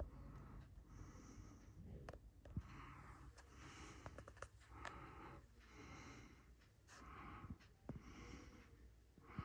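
Faint, slow breathing close to the microphone, each breath a soft hiss that comes and goes about every second or two, with a few light clicks.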